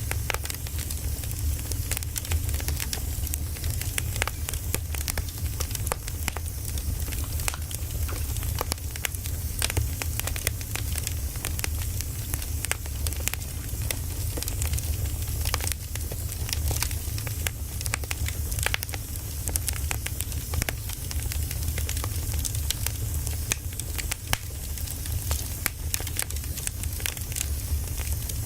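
Firewood burning, with many small irregular crackles and pops over a steady low rumble of the fire.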